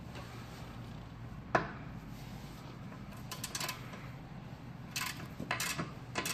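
Half-inch-drive ratchet wrench on a suspension bolt: a single sharp metallic snap about a second and a half in, then short runs of quick ratchet clicks as the handle is swung back and forth.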